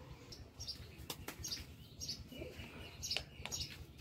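Small birds chirping faintly, short high chirps scattered here and there, with a few light clicks among them.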